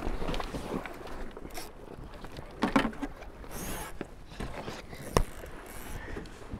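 Wind and water noise aboard a Tornado catamaran under sail, with a few short knocks from the boat's gear, the sharpest about five seconds in.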